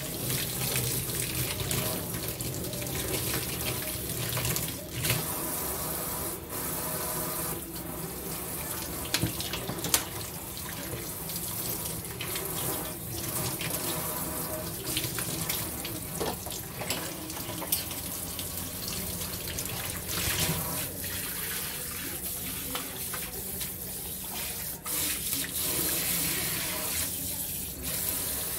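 Kitchen faucet running steadily into a stainless steel sink while things are rinsed under the stream, with occasional sharp knocks and clinks.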